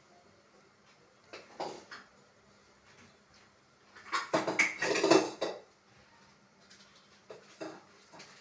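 Kitchen utensils and dishes clattering: a couple of knocks, then a loud burst of clinking and rattling about four seconds in, and a few light taps near the end.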